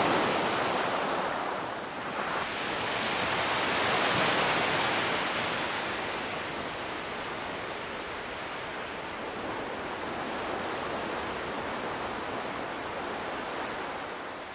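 Sea surf washing onto a beach, a steady rush of waves that swells about four seconds in, then eases and fades out at the end.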